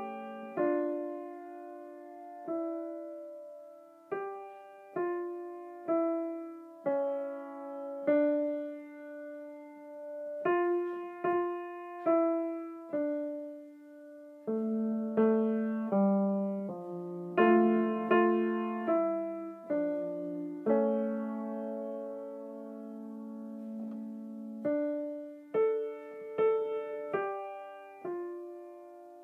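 Slow solo piano music: single notes and chords struck about once a second, each left to ring and fade.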